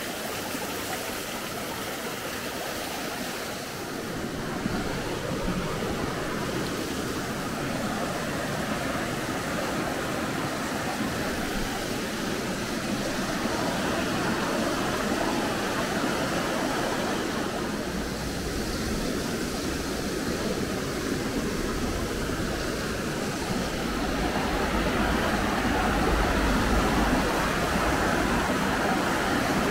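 Steady rush of running water, a stream or small waterfall. A low rumble joins in about two-thirds of the way through.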